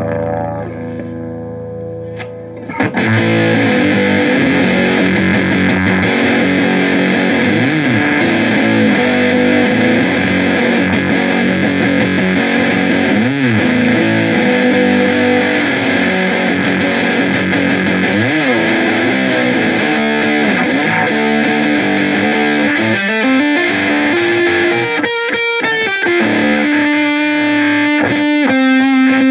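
Electric guitar played through a JHS Lizard Queen octave fuzz pedal into a Laney AOR 50-watt head and Marshall 4x12 cabinet. It is quieter for the first few seconds, then heavily fuzzed, distorted riffing with string bends comes in, and quick repeated picked notes follow near the end.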